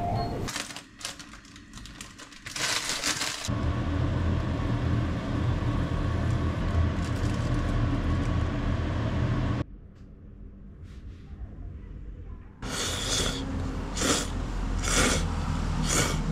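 Steady hum and hiss of cooking on a gas stove with a low drone. After a short lull come loud noodle slurps, about six of them, each a short burst roughly half a second to a second apart.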